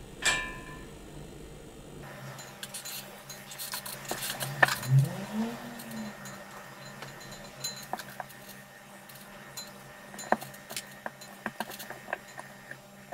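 Handling noise of small parts: light irregular clicks and taps of a copper-wound stator coil and a plastic fan hub being handled and fitted together, with a sharp tap near the start and a brief low squeak about five seconds in.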